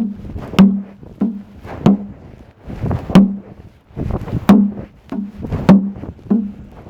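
A regular series of sharp knocks, roughly one every 0.6 seconds, each followed by a brief low hollow ring.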